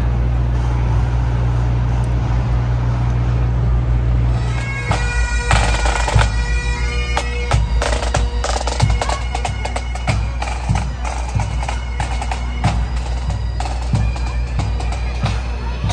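Pipe band of bagpipes and drums playing in a marching parade. A steady low drone sounds first; about five seconds in, the pipe melody enters with regular drum beats.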